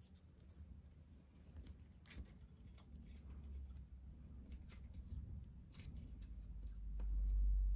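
Faint rustling and scattered light clicks of crocheted paper-yarn pieces being handled and pinned together, with a low rumble starting near the end.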